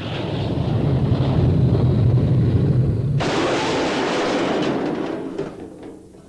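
Tatra 613 test car in a 48 km/h barrier crash test: a low rumble as it approaches, then about three seconds in the sudden noise of the impact against a concrete barrier, which fades over about two seconds with a few small knocks.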